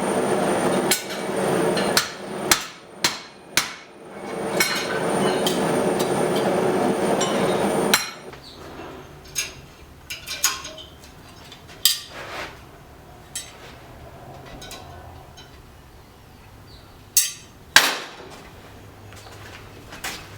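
Hammer blows on steel at an anvil while forging an axe head. A handful of strikes fall in the first four seconds over a steady rushing noise that stops abruptly about eight seconds in. After that come scattered lighter knocks and taps, with two louder strikes near the end.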